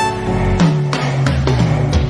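Background music: an electronic track with plucked, guitar-like notes and a gliding bass.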